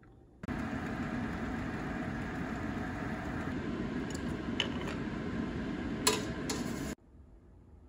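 A metal ladle clinking against glass mason jars and a stainless steel pot as stewed chestnuts in syrup are ladled in, over a steady low kitchen rush. A few sharp clinks come around four to five seconds in, and the loudest about six seconds in. The sound starts and cuts off suddenly.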